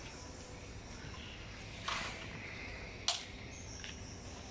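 Two sharp clicks about a second apart, the first trailing into a short scrape, as plastic trim clips on the front covers of a Scania G410 truck cab are worked loose by hand.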